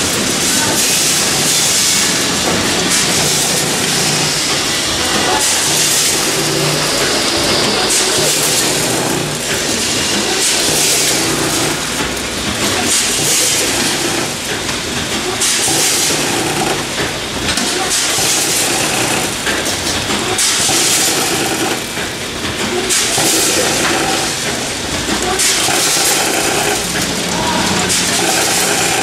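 Multihead weigher and bagging machine running on cat food kibble: a steady machine hum under rushes of hiss that swell and fade every second or two.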